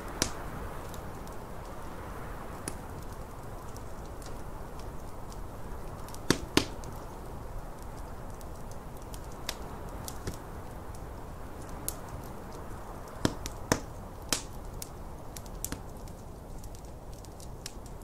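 Wood fire crackling in a fireplace, with sharp pops scattered through, the loudest a pair about six seconds in and more around thirteen to fourteen seconds. Under them runs a steady rushing noise of snowstorm wind.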